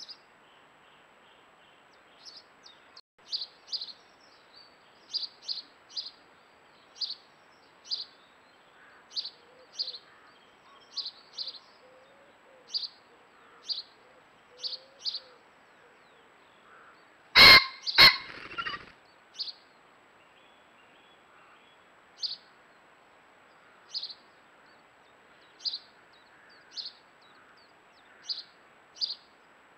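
A small bird repeats short, high chirps about once a second. About halfway through, a cock pheasant gives its loud two-note crow, followed by a brief whirr of wing-beats.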